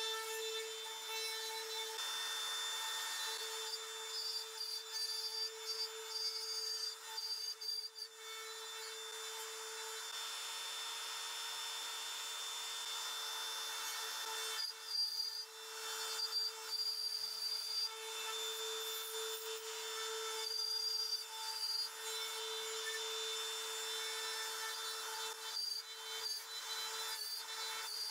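Compact trim router running at full speed with a steady high whine, its bit cutting into a plywood blank as the copy-carver carriage traces a pattern. The cutting noise rises and falls unevenly with the hand feed.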